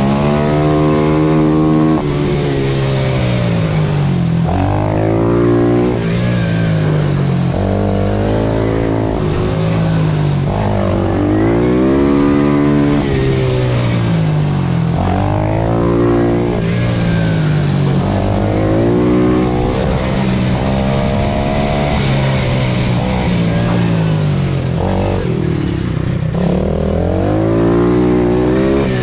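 Pit bike engine heard on board, revving hard and climbing in steps through the gears, then falling back as the throttle closes for a corner. This repeats again and again through the lap.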